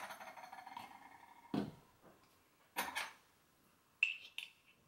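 Light kitchen handling sounds of a metal measuring spoon and a small glass salt jar. A clink leaves a ringing tone that fades over about a second and a half, followed by a soft knock, a brief scrape, and two sharp clinks near the end, the first with a high ring.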